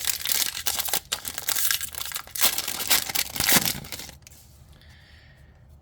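Trading card booster pack wrapper being torn open and crinkled, a dense crackling that stops about four seconds in.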